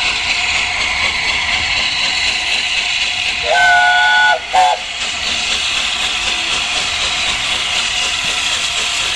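Steam locomotive 60163 Tornado sounding its chime whistle, several notes at once: a blast of about a second roughly three and a half seconds in, then a short second toot right after. A steady hiss runs underneath as the locomotive draws its train slowly past.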